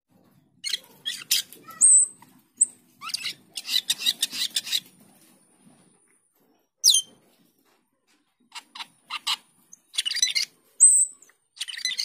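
Asian glossy starling (cucak keling) singing in two bouts of rapid harsh chattering and clicking notes, mixed with short high whistles. A single sharp slurred note falls in the pause of a couple of seconds between the bouts.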